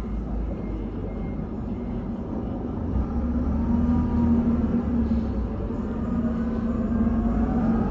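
Forklift engine running as the truck drives forward, a steady hum over a low rumble, rising in pitch over the last couple of seconds.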